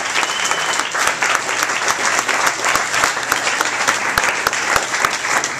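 Audience applauding: a dense clatter of many hands clapping, steady throughout.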